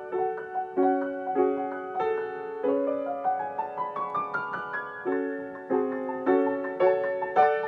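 Solo piano playing chords in the middle register, each struck and left to ring, with a quick run of notes climbing upward about three seconds in before the chords return.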